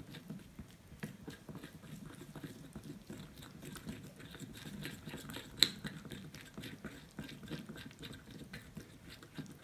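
A small spoon stirring a thick paste of rice flour, milk powder and yogurt in a bowl: a steady run of soft, wet clicks and scrapes, with one sharper knock of the spoon against the bowl about five and a half seconds in.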